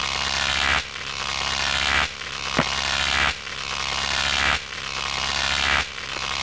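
Synthetic sound effect for an animated logo intro: a noisy hiss that swells and drops back about every second and a quarter over a steady low hum, with one sharp click partway through. It stops abruptly.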